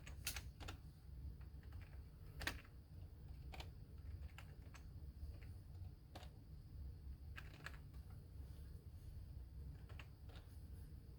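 Computer keyboard keys being typed in irregular, spaced-out keystrokes, the loudest about two and a half seconds in, over a steady low hum.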